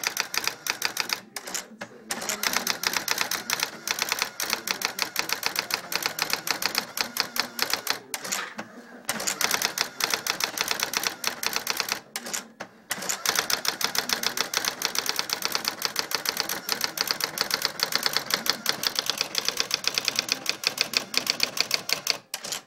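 Brother SX-14 electronic typewriter typing on its own in automatic mode: a rapid, even run of sharp print strikes, about ten a second, broken by a few short pauses.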